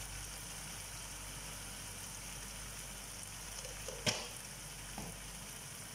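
Ketchup and honey sauce simmering in a frying pan, a steady sizzling hiss, with a single sharp knock about four seconds in and a fainter one a second later.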